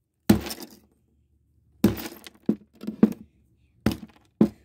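Claw hammer striking shards of a broken glass jar on a concrete slab: about seven sharp blows at uneven intervals, each with a crunch of breaking glass.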